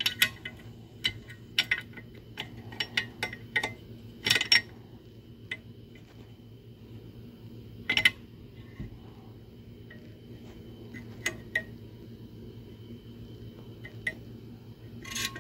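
Metal parts of a UFP A-60 trailer brake actuator clinking and tapping as they are handled, in irregular sharp clicks, with a steady low hum underneath.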